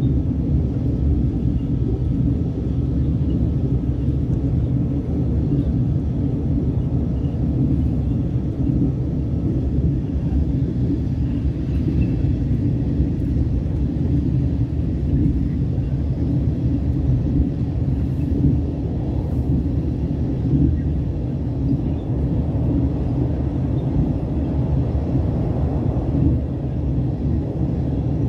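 Train running at speed, heard from inside the passenger carriage: a steady low rumble of wheels on track and running gear.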